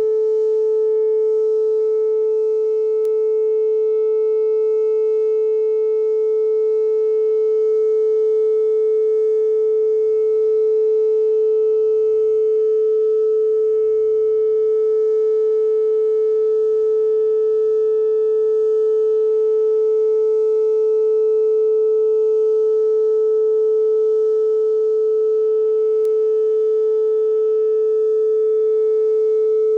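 Whelen WPS-2807 electronic outdoor warning siren sounding a steady tone for its monthly test: one loud, unchanging pitch with no rise or fall.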